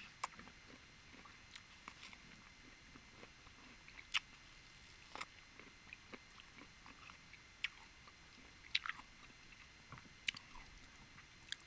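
Close-miked mouth sounds of a person chewing and biting food, heard as scattered sharp, wet clicks and smacks at irregular intervals.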